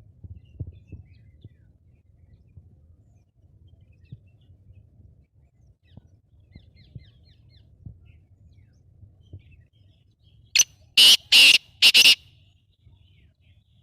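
Black francolin calling: a loud, harsh phrase of one short note followed by three longer notes in quick succession, about ten and a half seconds in, over a faint low rumble with soft ticks.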